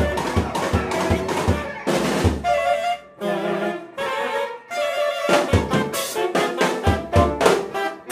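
Live band of saxophone, viola, guitar and drum kit playing, with sustained saxophone notes over steady drum hits that pause about three seconds in and come back near the end.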